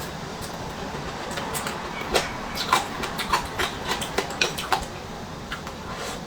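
Close-miked eating sounds: a run of sharp, crisp clicks of chewing, several a second, starting about two seconds in and stopping near the five-second mark.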